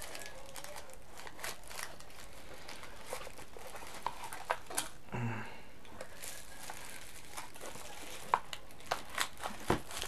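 Thin plastic bag crinkling and rustling as it is handled and pulled off a plastic bulb-shaped security camera, with scattered sharp clicks, several of them close together near the end.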